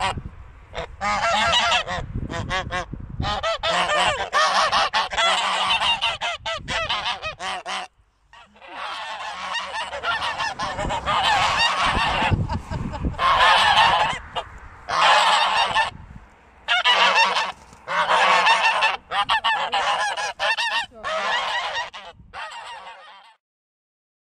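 A flock of white domestic geese honking loudly in alarm at someone at their fence, many birds calling over one another in bouts of a second or two with short pauses. The honking stops abruptly near the end.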